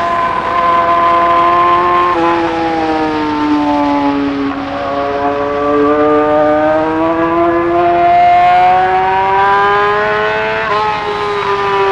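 Yamaha R6 sport bike's 599 cc inline-four engine running at high revs under way. Its pitch falls a few seconds in, then climbs steadily for several seconds, with a brief break near the end like a gear change.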